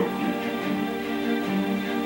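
Instrumental background music with long held notes and no voice over it.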